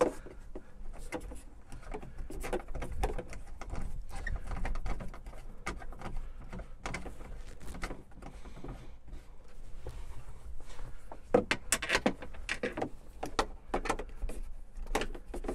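Scattered light clicks, knocks and rattles of Jeep Wrangler Freedom top roof panels and their latches being handled and loosely fitted into place, with a few louder clicks near the end, over a low steady hum.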